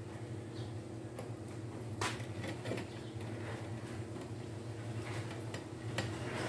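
Light metallic clinks and taps of steel pieces and locking pliers being handled on a metal workbench, a few sharp clicks scattered through, the loudest about two seconds in, over a steady low hum.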